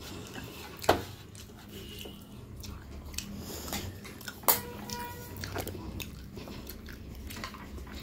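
A person chewing fish with the mouth closed while fingers pick at it on a steel plate, with two sharp clicks about a second and four and a half seconds in and a few fainter ones.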